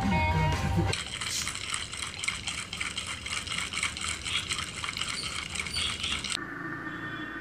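Kittens lapping milk from a shallow tray: a fast, uneven run of wet licking clicks. Guitar music sounds in the first second, and near the end the lapping gives way to a steady hum.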